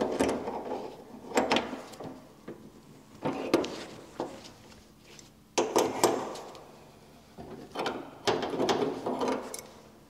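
Adjustable spanner clicking and clattering against brass isolation valve nuts as the valve connections on a combi boiler are tightened, in about five short bursts.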